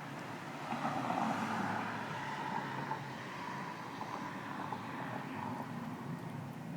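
Distant vehicle noise: a steady rumble that swells about a second in and then slowly eases, with a faint whine in it.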